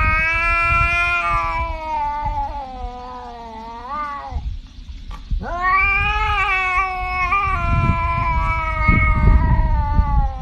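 Tabby cat yowling in two long, drawn-out calls, the first dipping in pitch as it ends about four seconds in, the second starting a second or so later and lasting almost to the end. A low rumbling noise runs underneath, strongest near the end.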